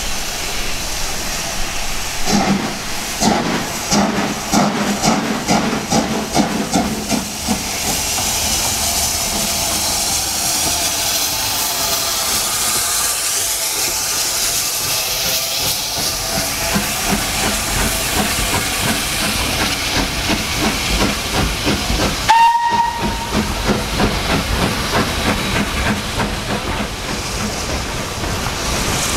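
Steam locomotive (LSWR S15 class 4-6-0 No.506) working slowly past, with a regular chuff from its exhaust, then a long hiss of steam. About three-quarters of the way through, a short blast on a steam whistle, followed by more chuffing.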